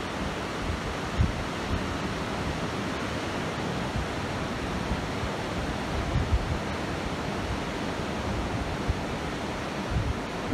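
Ocean surf breaking on a sandy beach: a steady rush of waves, with short irregular low gusts of wind on the microphone.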